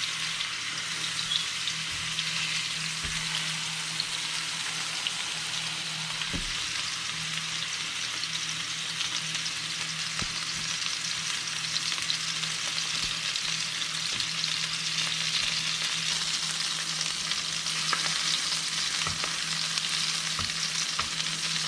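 Yellowfin tuna steaks searing in hot olive oil in a frying pan on medium-high heat, with a steady sizzle.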